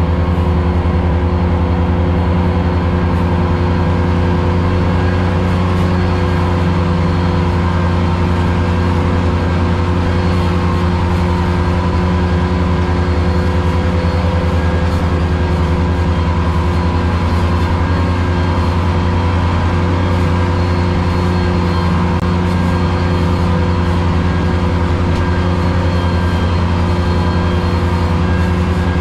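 Ventrac 4500Z compact tractor running steadily at working speed while mowing tall grass with its 72-inch finish mower deck, heard from inside the cab. It is an even, unchanging engine drone.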